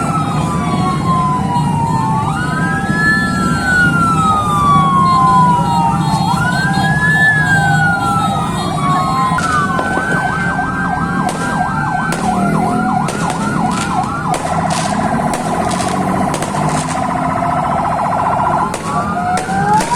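Several ambulance sirens sounding at once. Slow rising-and-falling wails repeat every few seconds, switch to a rapid yelp about halfway through and to a faster pulsing warble after that, then return to the wail near the end. Sharp cracks, firecrackers going off, are scattered through the second half.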